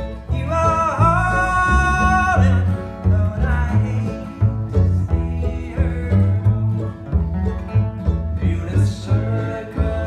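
A bluegrass band playing live, with a resonator guitar (dobro) played lap-style with a steel bar among the instruments, over a rhythmic bass line.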